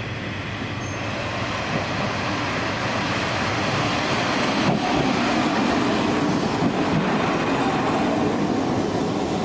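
Train running on the line, a steady rumble with wheel and rail noise that slowly grows louder.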